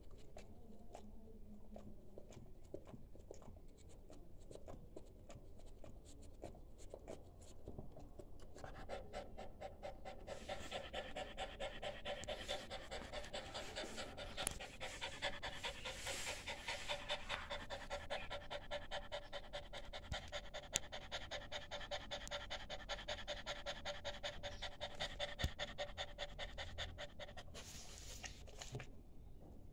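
French bulldog panting rapidly, faint at first, then louder from about nine seconds in with a steady tone running through the quick breaths.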